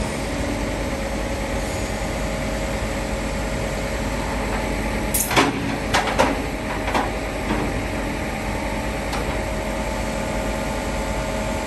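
Tow truck engine idling steadily. About five seconds in, a short string of sharp clanks and clicks comes from the foot of the lowered tilt tray.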